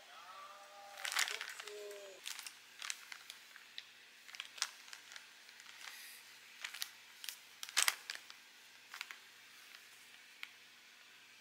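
Plastic mailer bag and a bundle of cotton socks rustling and crinkling as they are handled, with scattered light clicks and crinkles.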